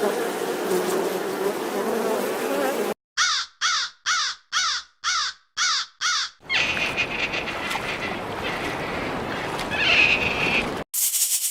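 A series of about six short, harsh animal calls, about two a second, each rising and falling in pitch. They come between stretches of rushing noise.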